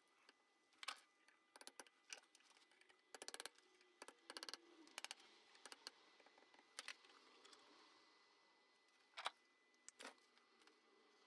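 Faint, sharp metal-on-metal clicks and taps from a hand-held steel punch working the lock tab washers against bolt heads on a small steel housing held in a vise. Some come in quick little clusters, and the loudest click is about nine seconds in.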